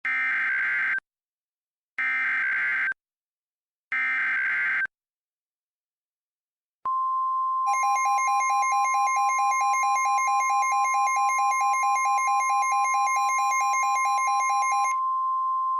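Emergency Alert System header: three one-second bursts of screeching data tones, two seconds apart. After a short gap comes a steady alert tone, with a fast pulsing alarm tone layered over it for about seven seconds. Together they mark the start of a tornado warning message.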